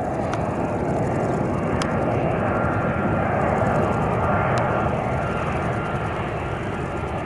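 Boeing 767 airliner on final approach, its twin jet engines making a steady rumbling roar with a faint thin whine above it.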